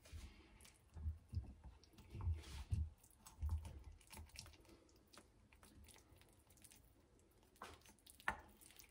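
Knife cutting through a baked gratin in a round metal pan: soft squishing and crunching of the crust, with light clicks and scrapes of the blade against the pan. A few dull knocks come in the first few seconds, and two sharper clicks near the end.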